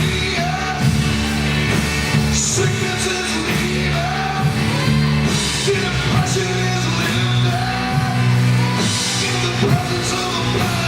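Live gospel worship music: a drum kit with cymbal crashes and held low notes under a voice singing.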